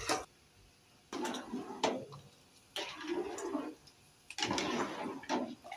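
A long metal skimmer stirring rice in a large steel pot of boiling water: three sloshing strokes of about a second each, with a few clinks of metal against the pot.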